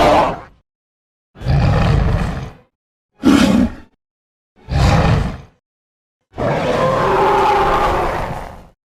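Spinosaurus roar sound effects played one after another: the end of one roar, then a short roar, a very brief one, another short one and a long drawn-out roar, each cut off into dead silence.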